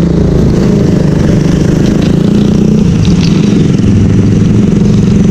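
Motorcycle engine running steadily while riding down a street, heard from the rider's seat.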